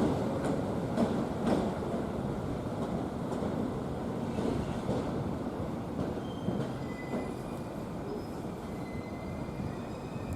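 Electric multiple-unit train shunting: wheels clack over rail joints a few times in the first half over a steady rolling rumble, then thin, high wheel squeal sets in from about six and a half seconds.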